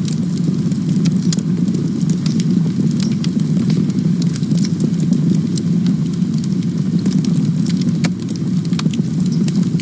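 Campfire burning: a steady low rumble of flames with many quick crackles and pops.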